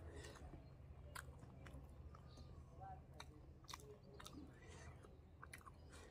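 Faint chewing of roti and dal, with scattered soft mouth clicks and smacks over a steady low hum.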